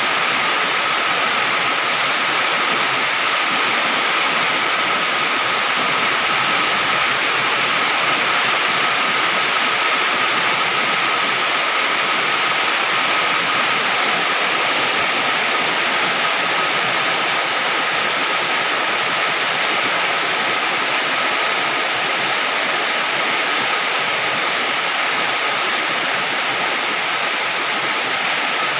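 Rain falling on a galvalume sheet-steel roof: a steady, dense hiss with no let-up and a faint steady tone running through it.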